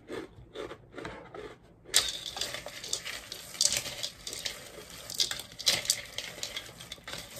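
A few crunching bites on a rice cracker, then from about two seconds in a continuous rustle and clatter as popcorn and rice crackers are tossed and stirred by hand and with a utensil in a plastic mixing bowl.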